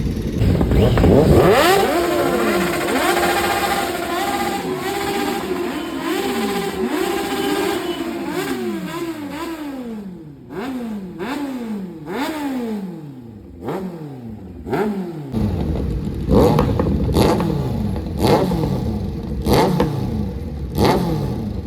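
Kawasaki Z-series inline-four motorcycle with a de-catted full aftermarket exhaust system, revved hard. It rises to high revs and holds them steady for several seconds, then comes a long string of quick throttle blips, each rising and dropping back. Near the end come sharper, louder repeated revs.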